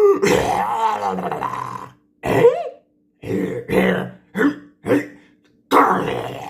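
A person's voice imitating a velociraptor: one long throaty call of about two seconds, then a string of five short calls with silences between, and another longer call near the end.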